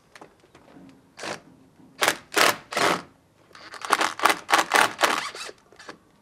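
A hand tool scraping along the edge of a wooden board in separate strokes: one, then three slower ones about half a second apart, then a quicker run of about six strokes.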